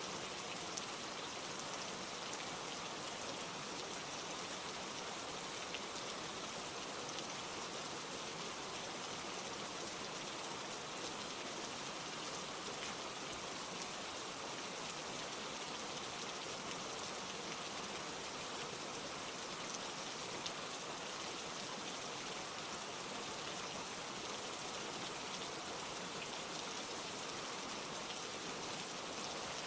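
Steady rain falling, a constant hiss of drops with a few faint individual drop ticks.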